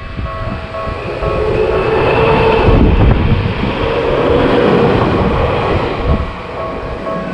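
A train passing through a Japanese level crossing: its running noise swells to a peak in the middle and then eases off. The crossing's warning bell rings throughout, drowned out while the train is loudest and heard clearly again near the end.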